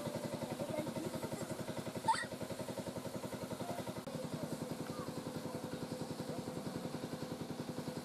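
A small engine running steadily at idle, an even, rapid chugging of about a dozen beats a second, with a brief rising squeak about two seconds in.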